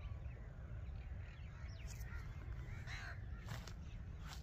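Crows cawing a few times, the clearest caw about three seconds in, over a steady low rumble.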